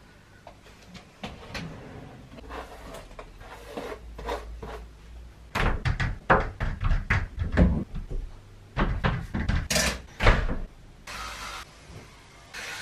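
A run of knocks, clicks and clatter of household things being handled and set down, like cupboard doors opening and shutting, busiest in the middle. Near the end come two short bursts of hiss.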